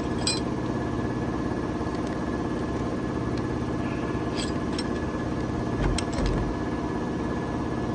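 Steady low hum of running machinery, with a few small metallic clicks as a hex key works the set-screw collars on a paper folder's perforating shafts.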